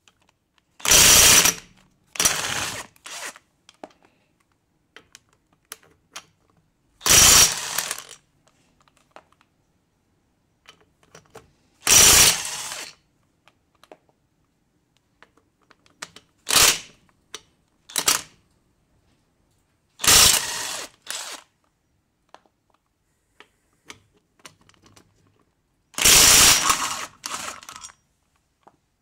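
A DeWalt XR cordless impact wrench hammering the wheel bolts of a VW Polo loose and spinning them out. It comes in repeated bursts of about a second, every four to six seconds, each often followed by a shorter blip.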